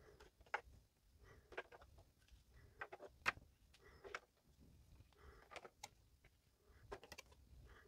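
Faint, scattered clicks and taps as Pokémon cards are pulled from a clear plastic tray insert and handled, with the loudest click a little over three seconds in.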